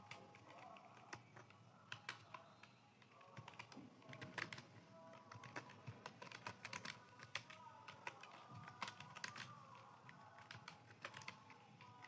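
Computer keyboard being typed on in quick, irregular keystrokes, faint and close, with small pauses between bursts of typing.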